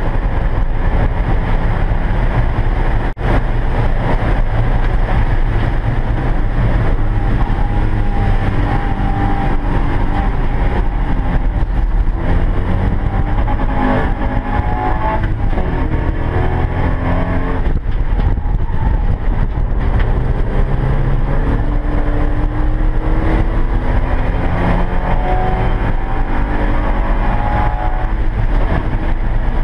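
Porsche 944 race car's four-cylinder engine running hard, heard inside the cockpit over heavy wind and road noise. It comes down as the car brakes for a slow corner around the middle, then climbs again in repeated rising sweeps as the car accelerates and shifts up through the gears.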